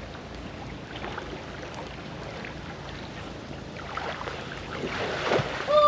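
Water splashing and sloshing against a steady background of wind on the microphone, the splashes growing stronger towards the end, where a short high call sounds.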